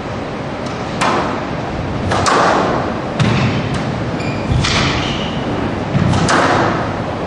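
A squash rally: the ball is struck by rackets and smacks off the court walls in sharp thuds about once a second, over the steady murmur of the hall.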